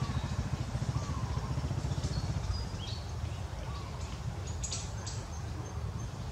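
Engine idling nearby with a low, rapid throb that eases a little about halfway through, with a few faint high bird chirps over it.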